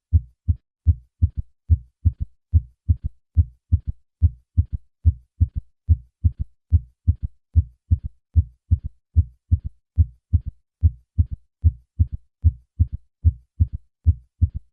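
Heartbeat heard through a stethoscope: normal beats with first and second heart sounds at first, then each beat with a faint third heart sound in early diastole, shortly after the second sound, which makes a three-part gallop rhythm. The beats are steady and regular, all short low thumps.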